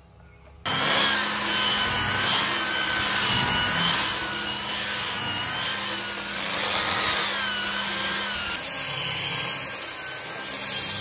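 Angle grinder fitted with a sanding disc, sanding a wooden tabletop: a motor whine that wavers up and down in pitch as the disc is pressed and moved, over the rough scratching of the abrasive on the wood. It starts abruptly under a second in.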